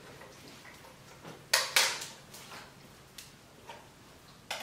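Metal beaters clicking and knocking against a hand mixer as they are pushed into its sockets: two sharp clicks about a second and a half in, then several lighter taps.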